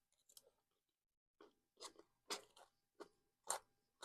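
Close-up chewing of a mouthful of crunchy salad, with crisp crunches at about two a second, starting about a second and a half in after a few faint clicks.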